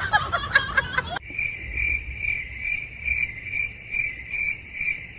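Cricket chirping in an even rhythm, about two to three high chirps a second. About a second in, a burst of talk and chuckling cuts off sharply as the chirping begins.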